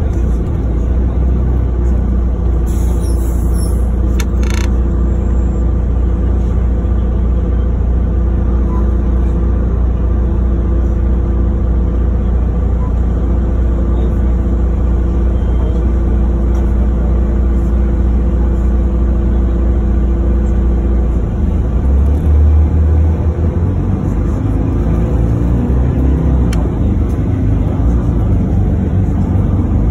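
City bus running in traffic, heard from inside the cabin: a steady low engine and road rumble. A brief hiss comes about three seconds in, and the engine note shifts a little past the twenty-second mark.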